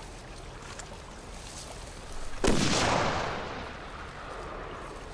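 A single gunshot about halfway through, its report echoing and dying away over about a second and a half.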